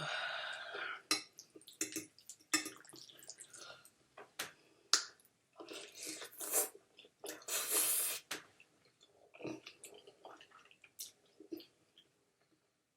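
Close-miked eating: a toothless person chewing spaghetti with meat sauce on her gums, making irregular wet smacks and clicks, with a couple of longer wet sounds around the middle.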